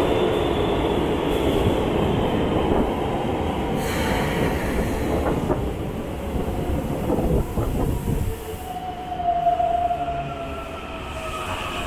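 Subway train running along an underground station platform, a loud rumble of wheels and motors that fades about eight seconds in. Near the end a thin steady whine with wheel squeal follows as another train approaches.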